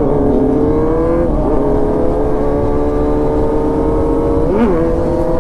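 Kawasaki Z900's inline-four engine pulling hard through the gears as the bike accelerates, its pitch holding or slowly climbing, with sudden pitch changes at gear shifts about a second in and near the end. Wind rushing underneath.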